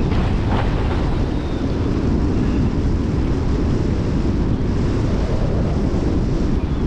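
Strong wind buffeting the microphone as a windfoil board sails at speed, a steady low rumble with water rushing and splashing past underneath.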